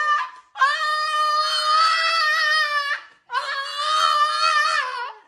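French bulldog howling in long, steady, high-pitched wails: the end of one call at the start, then two more of about two seconds each with a short break between them.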